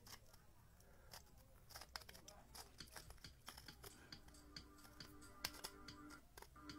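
Near silence with faint, irregular light clicks and taps, a few a second, as a flashlight is moved against a rough stone. A faint steady hum joins about two-thirds of the way through.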